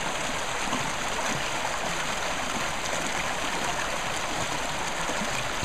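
Small woodland stream running: a steady rush of flowing water.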